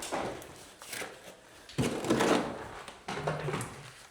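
Scraping and knocking of hand masonry work: stone and mortar being handled while a beam is wedged in place, with one louder scrape about two seconds in.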